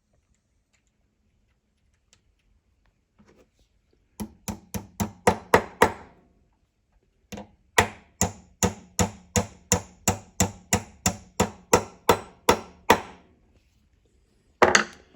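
A hammer tapping on the swivel joint of a Craftsman swivel socket: a run of about eight quick strikes, a short pause, then about sixteen more at roughly three a second, and a single strike near the end. The taps seat the added washer in the joint to tighten the loose swivel.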